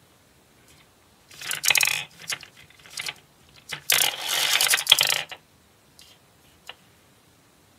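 Plastic toy gumball dispenser being worked: its knob is turned with a clicking rattle, and a gumball clatters down the clear plastic spiral chute into the tray. There are two rattling stretches, the second longer, then a couple of light clicks near the end.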